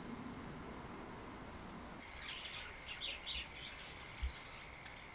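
A few short bird chirps about halfway through, over street background noise with a thin steady high tone, and a brief low thump a little after four seconds.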